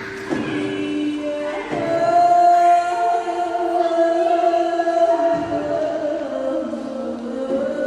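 Singing in long held notes that step from one pitch to another, with a few brief knocks.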